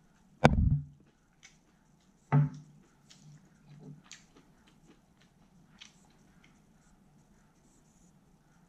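Close-miked eating sounds: two loud, short mouth sounds in the first few seconds, then faint scattered clicks and smacks of chewing.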